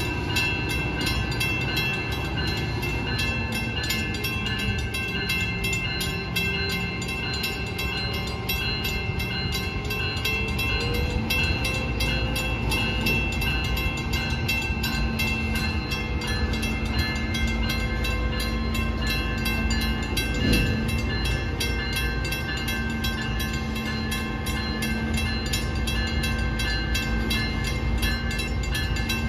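Railroad grade-crossing warning bell ringing with even, repeating strokes, over the low rumble and drone of a freight train at the crossing.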